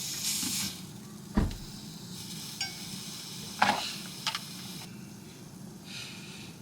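Squid sizzling in a pan, with a dull knock about a second and a half in and several sharp clinks of a utensil against the pan.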